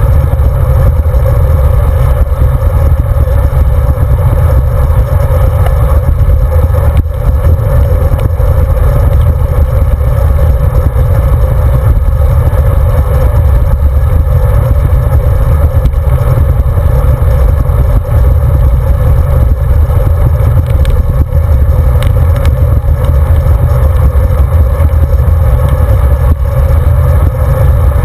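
Wind rushing over the microphone of a handlebar-mounted camera on a road bicycle riding at speed: a loud, steady rumble.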